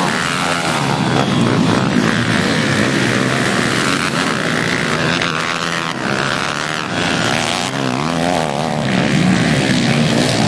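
Several pit bike engines racing together, revving high, their overlapping notes rising and falling as the bikes accelerate, shift and pass.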